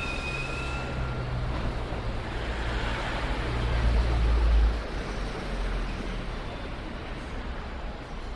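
Train stopping at a station: the last of the wheel-and-brake squeal fades in the first second. Then a hiss with a deep rumble builds, is loudest about four and a half seconds in and cuts off suddenly, leaving a steady low rumble.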